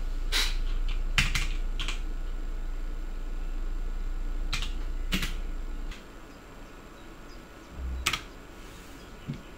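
Scattered single keystrokes on a red-backlit computer keyboard: a few clicks a second or more apart. Under them a steady low hum stops about six seconds in, and a dull low thump comes shortly before the last keystrokes.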